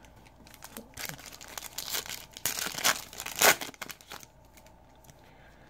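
Foil trading-card pack wrapper being torn open and crinkled by hand, a run of irregular crackles and rips that stop about four seconds in.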